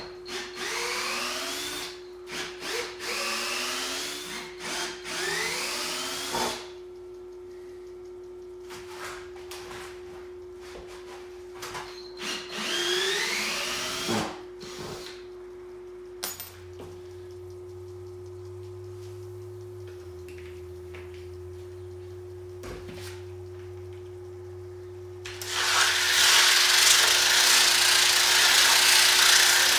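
Cordless drill whining up in short rising bursts, again and again, as it backs the screws out of the wooden forms around a concrete countertop slab, in two spells with knocks between them. Near the end a car-type polisher with a 50-grit diamond pad starts up and grinds the wet concrete, loud and steady.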